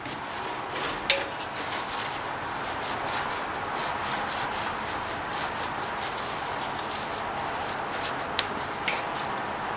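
Temperature gauge sensor, its threads coated in pipe dope, being screwed by hand into its threaded port: a steady rasping rub of threads turning, with a light click about a second in and two more near the end.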